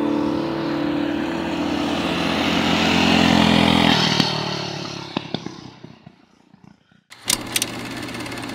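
A mini bike's small engine running at steady high revs as the bike rides by, then fading away about four to six seconds in. Near the end, after a brief lull, a different steady sound starts.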